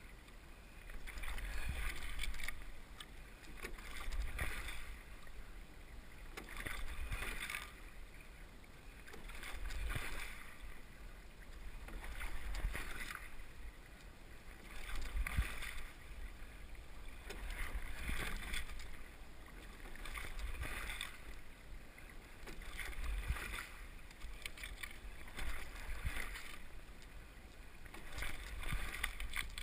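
Water rushing and splashing around a Bay 21 open-water rowing shell under sculling. It swells with each stroke in an even rhythm of about 22 strokes a minute.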